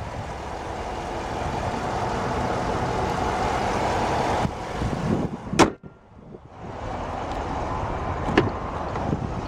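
A 5.7-litre Hemi V8 idling steadily under an open hood, then the hood slammed shut with one loud bang about five and a half seconds in. A lighter click near the end as the door handle is pulled.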